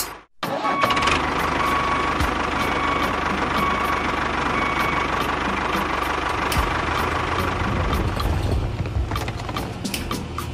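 Truck engine idling steadily, with a scatter of light clicks and clatter near the end as small toy bricks tip out of a dump bed.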